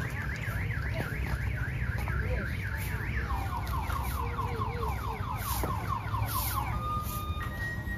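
Electronic alarm siren cycling through its tones: a fast up-and-down warble about four times a second, then quick rising whoops about five a second. Near the end it gives way to plain electronic beeping notes, with a steady low rumble throughout.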